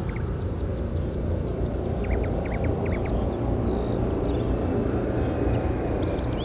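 Steady low rumble of the Space Shuttle orbiter Endeavour rolling out on the runway after touchdown, with birds chirping briefly several times, most of them two to three seconds in.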